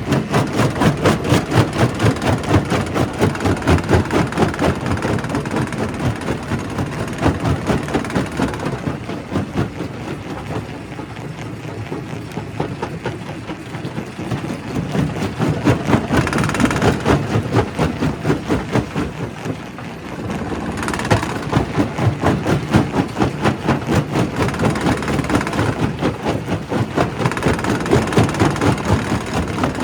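Primary rock crusher in a quarry running with a fast, even pulsing rhythm, easing off in the middle and building up again near the end.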